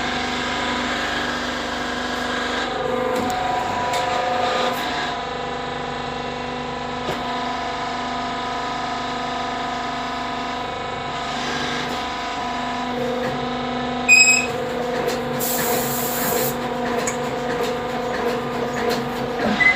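Brick-making press machine running with a steady, even hum. About 14 seconds in there is a sharp loud clack, followed by a short burst of hissing.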